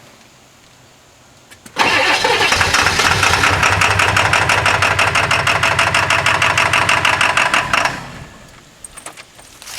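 A 1997 Ford F-250's 7.3L Powerstroke turbo-diesel V8 being cranked over by its starter for about six seconds in quick, even pulses, then stopping without catching. It is a hard cold start, which the owner puts down to bad injectors.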